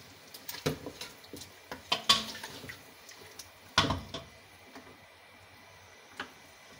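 Wooden spatula stirring meat pieces in a metal pressure cooker pot, knocking and scraping against the pot several times, the loudest knock a little past the middle, over a faint sizzle of the meat frying in oil and spices.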